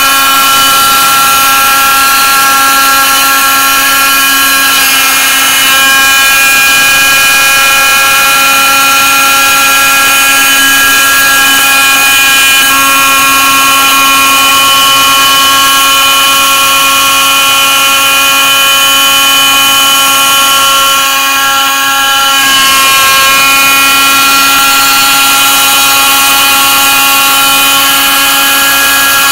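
Proxxon MF 70 mini milling machine's spindle running with a steady whine as its small end mill cuts a shim out of thin beer-can aluminium. The whine dips briefly about two-thirds of the way through.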